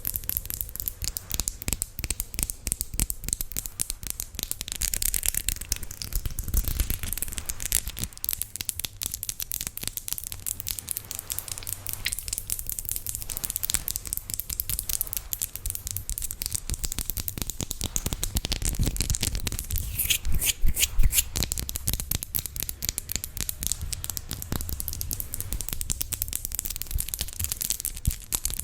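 Fingernails scratching a surface in a steady, unbroken run of quick, raspy strokes.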